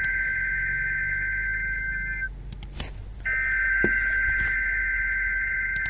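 Two bursts of EAS/SAME digital header data tones from a NOAA Weather Radio broadcast, sounding as a steady warbling buzz. The first burst cuts off about two seconds in, and the second starts about a second later and runs for nearly three seconds.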